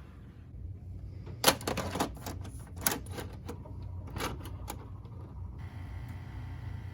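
A quick, irregular run of sharp clicks and clacks, about a dozen over three seconds, then stopping.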